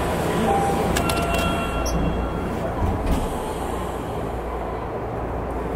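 Tokyo Metro Hanzomon Line train heard from inside the passenger car as it leaves Oshiage: a steady low rumble, with a few steady high tones about a second in and some faint clunks.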